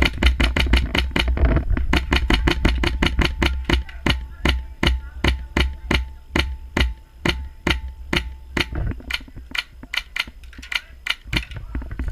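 Polarstar HPA-powered airsoft gun firing a long run of sharp shots, several a second, in quick strings with brief pauses, thinning out toward the end.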